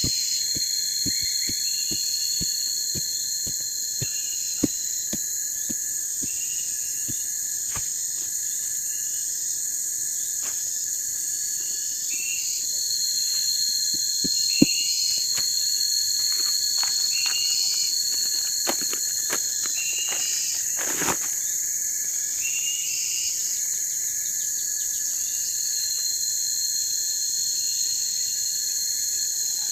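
Steady chorus of crickets and other insects trilling, with a chirp repeating about once a second. Faint short knocks sound throughout, about two a second in the first eight seconds.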